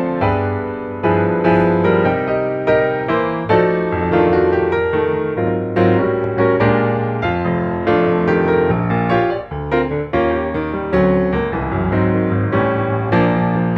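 Background piano music, a steady run of struck notes that each fade before the next.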